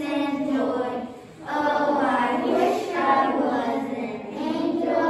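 A group of children singing in long held notes, with a short break about a second and a half in.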